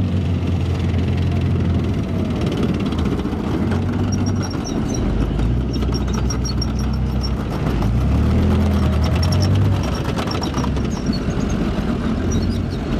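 Leopard 2A6 main battle tanks driving past, their MTU V12 diesel engines running with a deep steady note that swells as one passes close, about eight seconds in. Light clicking and squeaking from the steel tracks runs through it.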